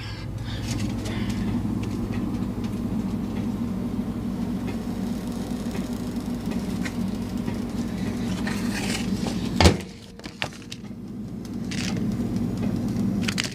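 A steady low mechanical hum, with one sharp knock about ten seconds in, after which the hum drops away briefly and then comes back.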